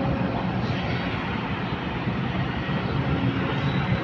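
Kobelco hydraulic excavator's diesel engine running steadily under load as it lifts a full bucket of dirt and swings it over a dump truck.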